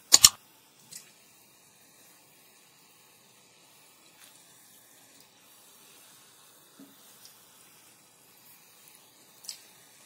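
Ghee gently bubbling and sizzling in a kadai on a low flame around a test ball of semolina gulab jamun dough, a faint steady hiss. Two sharp clinks right at the start, and a light tap near the end as a slotted spoon goes into the pan.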